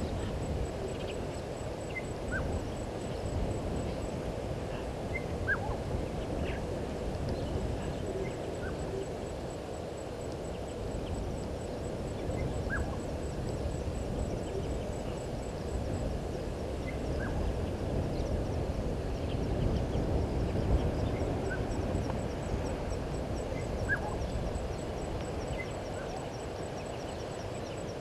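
Bush ambience: a steady low rushing noise, with scattered short bird calls, quick notes that drop in pitch, one every second or two.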